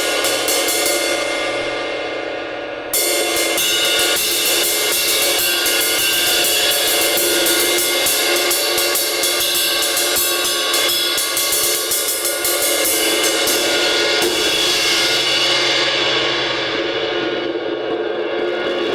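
A 1960s-era 20-inch Zildjian A ride cymbal played in quick repeated strikes over a ringing wash, its crack and keyholed area cut out and the edge smoothed. The strikes pause and the ring fades for a moment about three seconds in, then resume.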